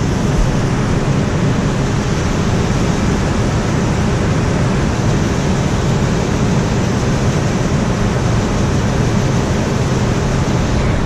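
Grain dryer running just after start-up: a loud, steady rush of its fan and burner.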